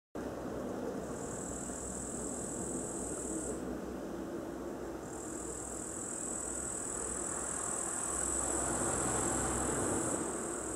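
Outdoor garden ambience: a steady low rumble of traffic, with an insect's high-pitched continuous buzz over it. The buzz runs from about a second in to three and a half seconds, stops briefly, then returns at about five seconds and continues, louder.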